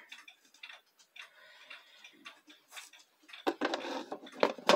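Clock ticking faintly. A little over three seconds in, louder rustling and handling noise starts, and a sharp knock comes near the end.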